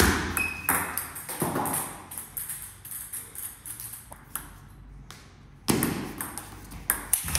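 Table tennis rally: the ball clicks sharply and repeatedly off the paddles and the table. There are two louder rushes of noise, one at the start and one about six seconds in.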